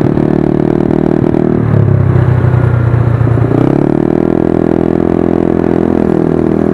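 Yamaha Mio scooter's single-cylinder four-stroke engine (59 mm block, 28 mm carburettor) breathing through a Hispeed aftermarket exhaust pipe, revved and held. It holds high revs, drops back to a lower note a couple of seconds in, then climbs smoothly back up past the middle and holds there until near the end.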